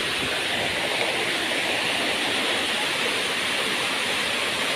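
Waterfall water rushing and splashing steadily over rocks.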